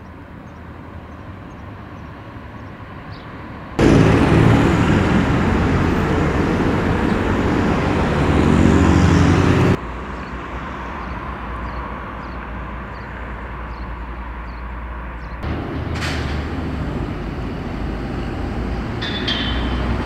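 City street traffic: motor vehicles running and passing. A heavy low engine rumble is loud for about six seconds in the middle, and the sound changes abruptly several times.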